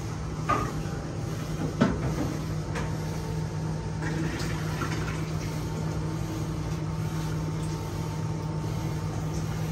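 Steady low machine hum with a faint higher tone above it, and a few light clicks and knocks in the first three seconds.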